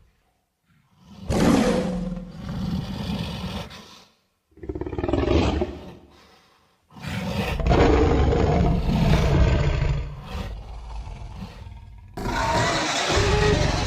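Monster roar sound effects for the Gorilla Wildzord, made from King Kong, Tartok the Ice Beast and Krog roars. The first roar begins about a second in, the second about four and a half seconds in, and a longer one runs for about five seconds from seven seconds in. Another roar starts abruptly near the end.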